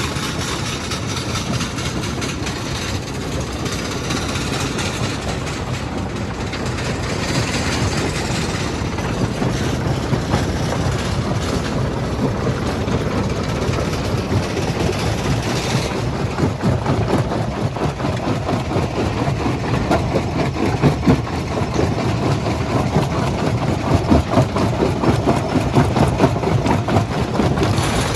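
Stone crushing plant running: a steady heavy machinery drone with irregular rattling knocks of rock, the knocks coming louder and more often in the second half.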